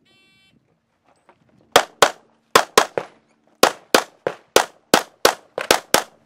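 An electronic shot timer beeps once, then about a second and a half later a pistol fires a rapid string of about fourteen sharp shots, mostly in quick pairs.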